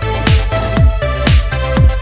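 Electronic background music with a steady kick drum about twice a second under sustained synth notes.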